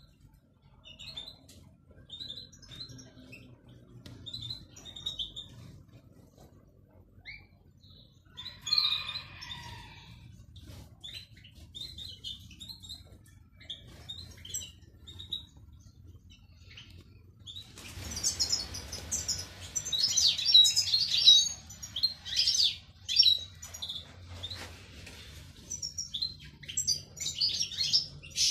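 European goldfinches chirping: scattered short calls at first, then, about two-thirds of the way through, a louder, fast twittering song that runs on to the end.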